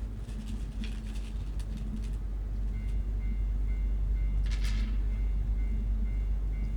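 Japanese railway crossing warning bell starting about three seconds in, its high ding repeating at an even pace, over a steady low rumble of a train. A short rushing hiss sounds about halfway through.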